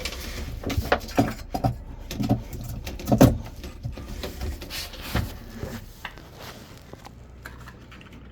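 A run of irregular knocks and clatters, loudest about three seconds in and dying down after about six seconds, over a faint low steady hum.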